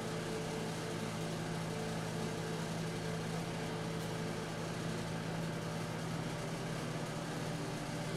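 A steady low machine hum, one unchanging drone with no rhythm or change in pitch.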